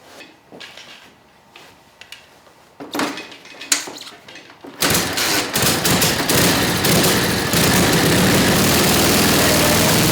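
Light metallic clinks and knocks of parts being handled. About five seconds in, a 1942 Harley-Davidson WLA's 45 cubic inch flathead V-twin starts abruptly and runs loud and steady.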